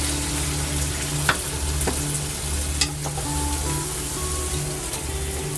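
Hot stir-fried pork, potato, eggplant and pepper sizzling in a pot as a wooden spatula stirs and scoops it out, with a few knocks of the spatula against the pot.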